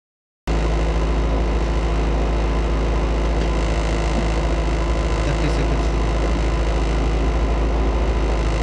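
VW Polo rally car's engine idling steadily while stationary, heard from inside the cabin. It cuts in about half a second in.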